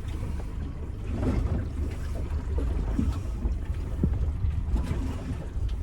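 Wind buffeting the microphone aboard a small boat at sea, a steady, uneven low rumble, with a few light knocks.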